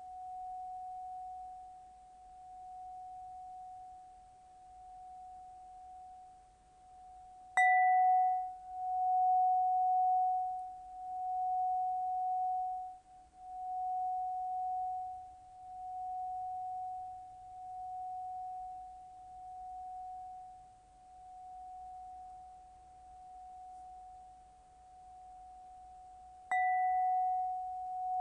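Kristallpentonia crystal rod instrument ringing one clear sustained note. The note swells and fades in slow waves about every two seconds as the instrument is swung through the air. The same note is struck afresh about eight seconds in and again near the end.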